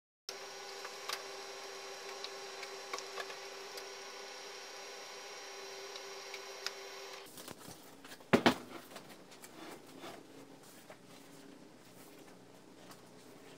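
Desktop printer running as it prints on Avery sheets: a steady whirr with held tones and occasional ticks. About seven seconds in it gives way to two sharp knocks, then light paper handling and rustling on a cardboard-covered bench.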